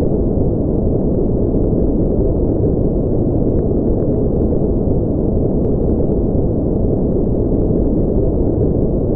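Steady synthetic white-noise track for sleep, with no change over time. Its energy sits low, below about 1 kHz, so it sounds deep rather than hissy. A few faint tiny ticks are scattered through it.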